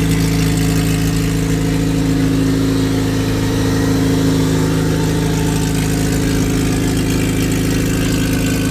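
Supercharged Honda K-series four-cylinder engine idling steadily with no exhaust fitted, running open header, just after its first start following an engine build.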